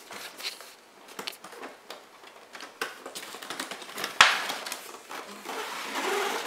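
A cardboard toy box being opened by hand, with the plastic tray sliding out: scattered clicks and scrapes of cardboard and plastic, a sharp tap about four seconds in, and a longer rustling scrape near the end.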